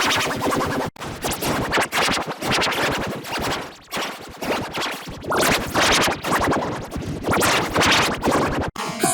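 Heavily processed electronic music-like audio with record-scratch-like sounds, dense and choppy. It cuts out sharply twice, about a second in and near the end.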